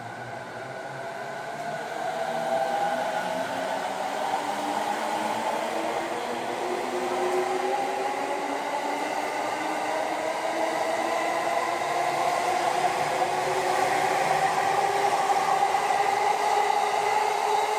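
Keiyo Line electric commuter train pulling out of the station, its traction motor whine climbing steadily in pitch as it accelerates, with rolling noise growing louder.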